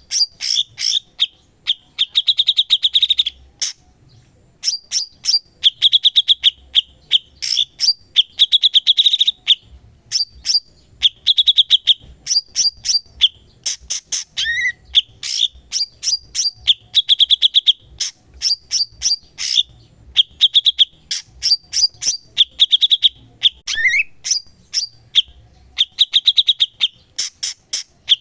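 Cucak cungkok, a caged bulbul, singing non-stop: fast chattering trills and sharp chirps repeated in short phrases every second or two, with a couple of lower swooping notes.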